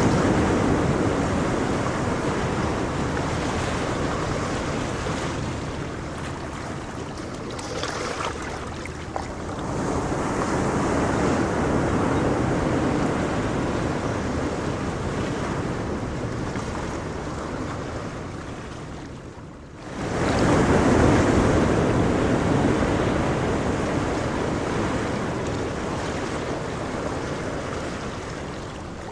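Ocean surf: waves breaking in a rushing noise that swells and fades every several seconds. About two-thirds of the way in, after a brief lull, a new wave surges in suddenly and then slowly dies away.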